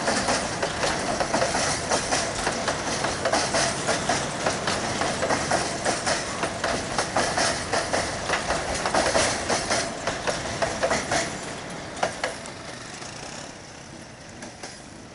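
Freight-train boxcars rolling past close by, their wheels clattering over the rails in rapid clicks and knocks. The clatter dies away about twelve seconds in as the last car passes, leaving a much quieter steady sound.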